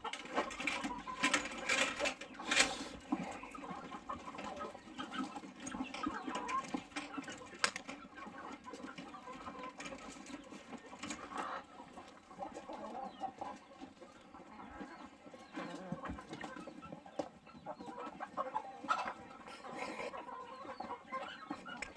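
A flock of Cheongye chickens clucking and chattering in the coop, with a few sharp knocks in the first few seconds.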